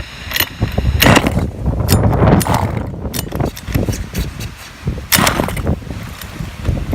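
Small two-stroke engine of a gas-powered RC truck being pull-started, firing in uneven bursts with clattering and never settling into a steady run.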